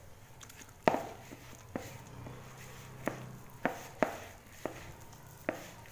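Hand kneading wet gram-flour dough in a plastic bowl, giving about seven sharp, irregularly spaced knocks and slaps as the hand works the dough against the bowl.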